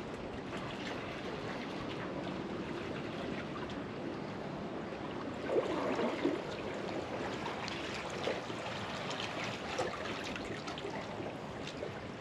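Steady wash and trickle of moving water, with scattered small clicks and a brief louder swirl about six seconds in.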